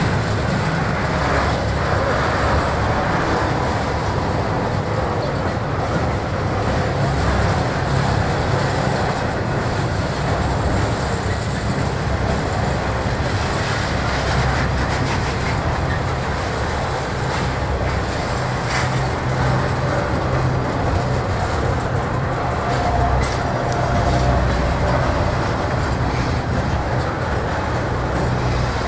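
Double-stack intermodal container cars rolling past on steel wheels: a steady, loud rumble of wheels on rail.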